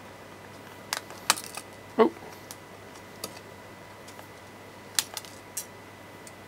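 Sharp plastic clicks and snaps as the case of a Samsung Smart Hub remote control is prised apart by hand, its clips letting go. A few clicks come close together about a second in, and a few more about five seconds in.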